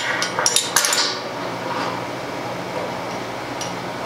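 Stainless steel valve and tri-clamp fittings clinking and clanking against the bottom of a stainless conical fermenter as they are fitted by hand: several sharp metal clinks in the first second, a quieter stretch, then a few more clinks near the end.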